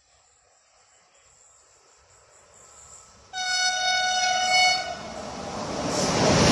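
Captrain electric locomotive sounding its horn, one steady chord held for about a second and a half, starting just past three seconds in. After it the locomotive's running noise swells steadily as it draws near.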